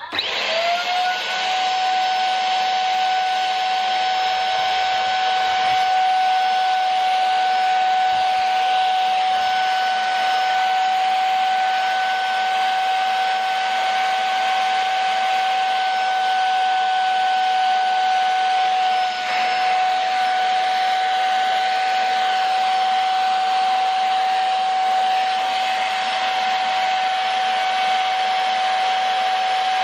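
Handheld vacuum cleaner switched on and running steadily, sucking the air out of a vacuum storage bag of clothes to shrink it. The motor spins up to a steady high whine within the first second, with a brief dip about two-thirds of the way through.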